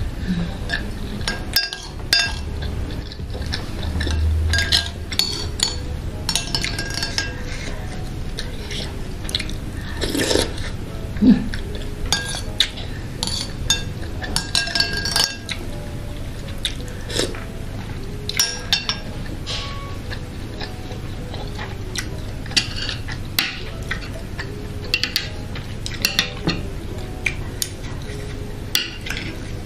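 Metal spoon clinking and scraping against a near-empty bowl as the last of the noodle broth is scooped up, in scattered short clicks, with eating sounds between them.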